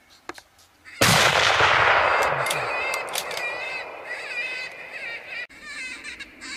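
A single rifle shot about a second in, echoing and dying away over the next couple of seconds, followed by wavering high-pitched animal calls.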